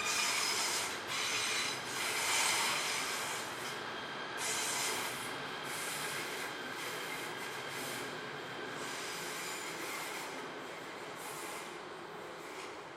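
Train brakes squealing as a train slows at the platform: a loud, high-pitched metallic screech with several shrill tones over a rushing noise, gradually fading.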